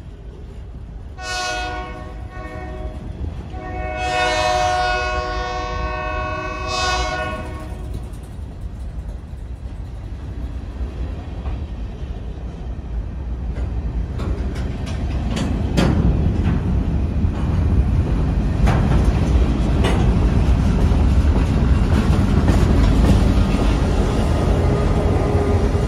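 Locomotive horn sounding several blasts in the first seven seconds, the longest about two seconds. After that, loaded covered hopper cars roll past with wheel clicks and a low rumble that grows louder as the trailing GP38-2 diesel locomotive comes alongside near the end.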